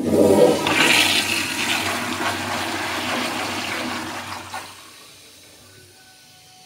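1980s American Standard Instanto toilet flushing through its flushometer valve: a loud rush of water starts suddenly and runs steadily, then drops away after about four and a half seconds to a fainter run of water.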